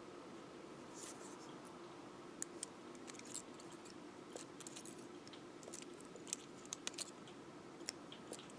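Faint, irregular light clicks and ticks of thin beading wire and steel round-nose pliers being handled as wire strands are twisted and separated.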